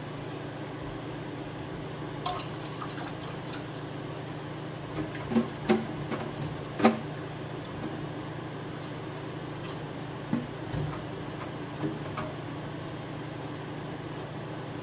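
Steady hum of an induction cooktop heating a cast-iron pot, with a scattered run of sharp clicks and knocks, loudest in a cluster around the middle.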